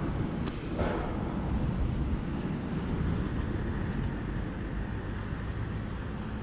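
City street ambience: steady road traffic running along a multi-lane avenue, with a brief sharp click about half a second in.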